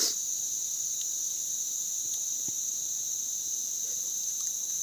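Steady, high-pitched chorus of forest insects, shrilling without a break, with one brief click at the start.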